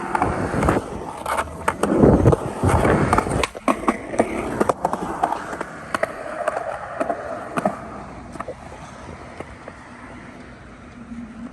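Skateboards rolling on concrete with a run of sharp clacks of boards hitting the ground. The rolling rumble is loudest about two seconds in, then the clacks thin out and the sound dies down toward the end.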